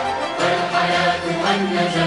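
Large choir singing with orchestral accompaniment, holding sustained notes.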